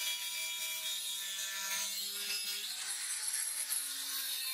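Angle grinder with a thin cutting disc cutting through metal stock, a steady high-pitched grinding hiss.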